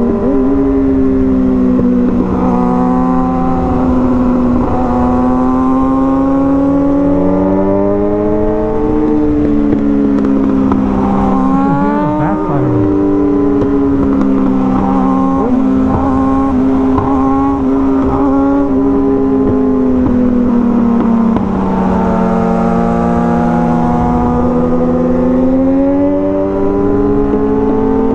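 Kawasaki ZX-6R 636 inline-four sportbike engine running at highway cruising speed, its pitch drifting slowly up and down as the throttle changes. About eleven seconds in there is a quick rising rev with shifts. Wind rumbles on the microphone underneath.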